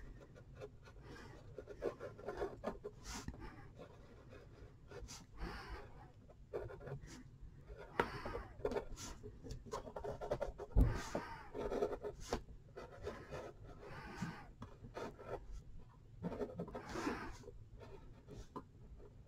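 Pencil drawing on a sheet of paper: faint, irregular scratching strokes in short runs, with a soft thump about eleven seconds in.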